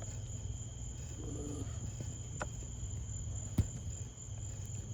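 Light clicks and taps of multimeter probes against an e-scooter battery's charge port as they are worked in, the sharpest about three and a half seconds in. Under them runs a steady low hum and a faint high-pitched whine.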